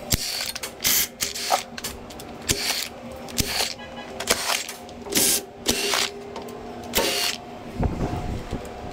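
A cordless power ratchet or driver running bolts off in short, uneven bursts, about seven of them a fraction of a second each.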